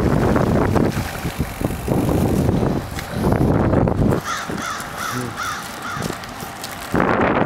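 Wild turkey calling, a quick run of about six short up-and-down notes. Wind rushes over the microphone at the start and again near the end, with scattered knocks in between.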